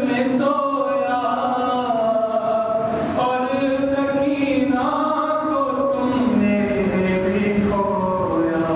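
A man's solo voice chanting a slow, melodic majlis recitation of lament from a book, with long held notes that slide between pitches.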